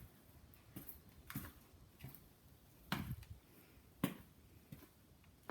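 Quiet room with a few faint, scattered clicks and knocks, the clearest about three and four seconds in; no opener motor is running.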